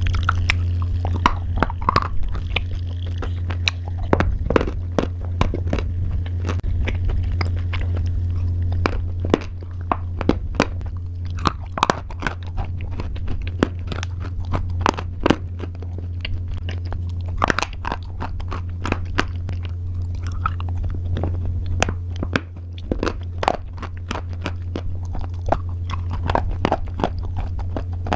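A person biting and chewing crunchy pasta: irregular sharp crunches all through, over a steady low hum.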